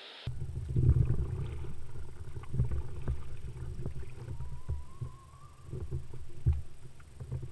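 A kayak being paddled, heard through a camera mounted on its deck: uneven low knocking and rumbling of water against the hull, with sharp splashes and clicks from the paddle strokes.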